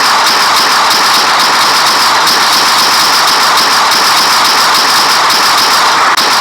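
Electric shock sound effect: a loud, steady crackling buzz made of dense rapid clicks, held at an even level.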